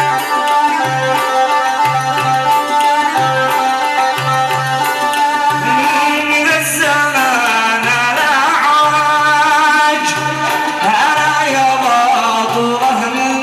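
Middle Eastern wedding music: a held instrumental melody over a regular low drum beat, with a male munshid's voice coming in about halfway through and singing a wavering, ornamented line.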